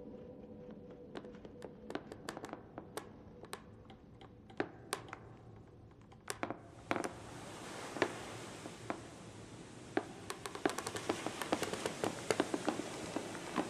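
Irregular sharp clicks and taps, scattered and uneven. About seven seconds in, a steady hiss starts and runs on under the clicks, which come thicker near the end.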